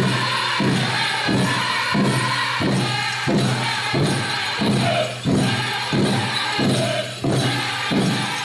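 Powwow drum group singing a chicken dance song in high voices over a steady, even drumbeat, with the jingling of the dancers' bells.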